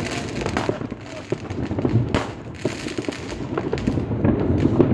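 New Year fireworks and firecrackers going off all around: a dense, unbroken run of bangs, pops and crackles, with louder blasts at the start, about two seconds in and near the end.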